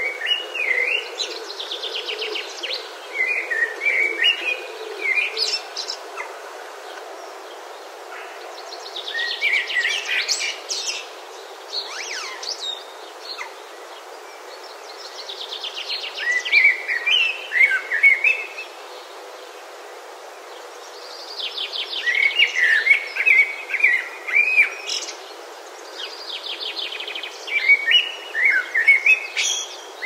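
A songbird singing: about five phrases, each a quick run of high notes dropping into lower whistled notes, repeated roughly every six seconds with pauses between.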